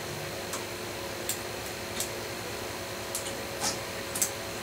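Irregular light clicks and taps of a small model railway locomotive being pushed and wiggled on a stretch of test track, about seven in all, over a steady background hum. The loco's motor only runs in fits, which the owner suspects could be its pickups not making contact.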